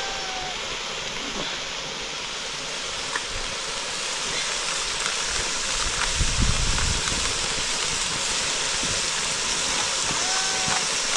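Toad meat curry sizzling and frying in a wok over a wood fire, a steady hiss.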